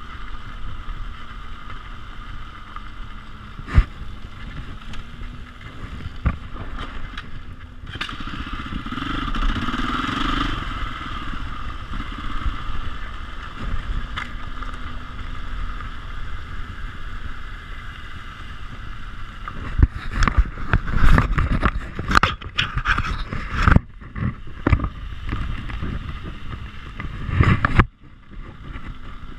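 KTM 450 EXC dirt bike's single-cylinder engine running at low speed over a rough gravel track, revving up briefly about ten seconds in. Sharp knocks and rattles from the bike jolting over bumps come now and then, thickest in the last third.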